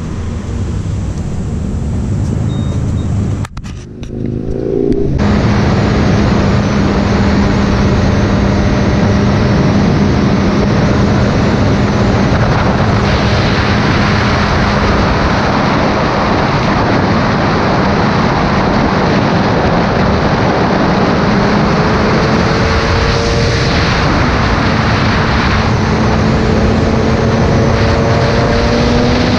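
Motorcycle riding at road speed: heavy wind and road rush over a steady engine hum, after a brief break about four seconds in. The engine note climbs slowly over the last several seconds as the bike speeds up.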